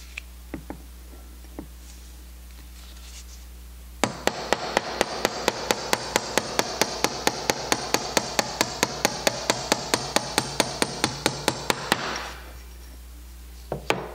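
Small ball-peen hammer tapping a brass rod to drive the needle's threaded screw out of a Zenith-Stromberg CD-175 carburetor piston. A few light taps come first, then from about four seconds in a steady run of about four quick blows a second for some eight seconds, and two more taps near the end.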